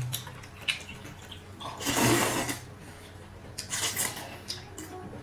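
A man slurping wide rice noodles from an instant noodle cup: a long, loud slurp about two seconds in and a shorter one near four seconds, with small mouth and eating noises between.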